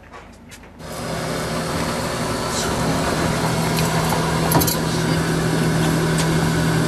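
A fishing boat's engine running steadily under way, with a constant low hum and rushing wind and water noise that cut in abruptly about a second in.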